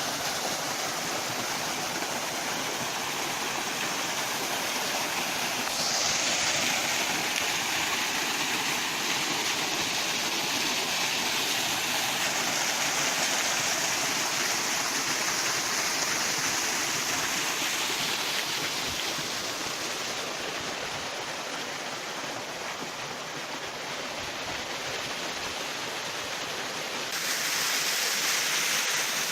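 Small mountain waterfall on a stream, water rushing and splashing steadily. It grows louder and brighter about six seconds in, and again near the end.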